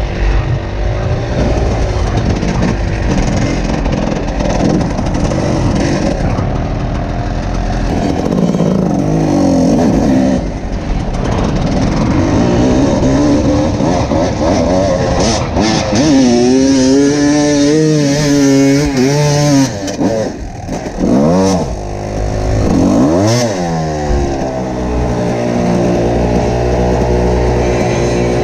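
Two-stroke enduro dirt bike engine being ridden off-road, revving up and down with the throttle. Its pitch climbs and falls repeatedly, with a few quick drops and sharp blips in the second half.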